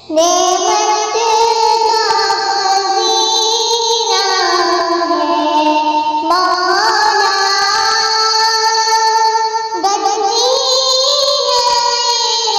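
A high voice singing an Arabic naat in long held notes that slide up and down, with new phrases starting about six and ten seconds in.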